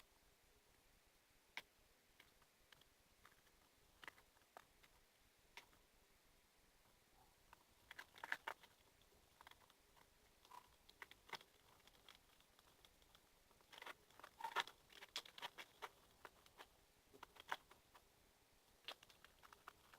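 Faint sticky clicks and squelches of purple slime being stirred in a container as it thickens with borax-water activator, coming in scattered clusters, busiest about 8 seconds in and from about 14 to 16 seconds.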